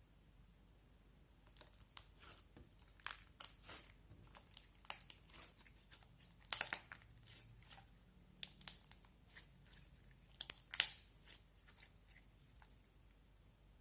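Slime being squished and worked by hand, giving an irregular run of crackling pops and snaps with two louder pops partway through.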